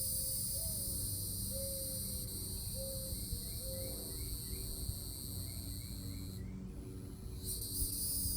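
Insect chorus: a steady high shrill that breaks off for about a second near the end, then starts again. Underneath are a few short low calls in the first half and faint repeated chirps.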